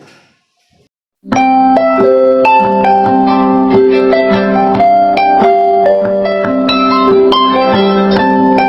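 Music begins abruptly about a second in: a melody of quick, ringing, plucked-sounding notes over a repeating lower line.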